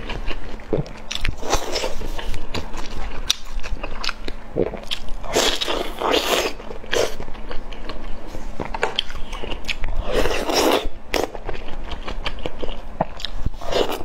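Close-miked mukbang eating sounds: a person biting and chewing oden skewers such as fish balls and fish cake, in irregular bursts with small sharp clicks.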